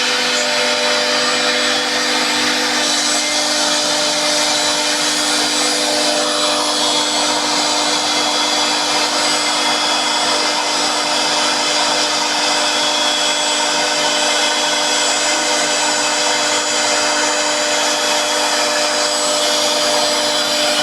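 CNC machine's spindle motor running at a steady speed, a constant whine over a continuous cutting and machining noise.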